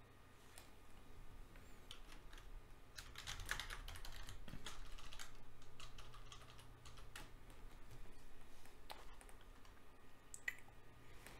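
Faint clatter of keys being typed on a computer keyboard in irregular runs, busiest a few seconds in, over a low steady electrical hum.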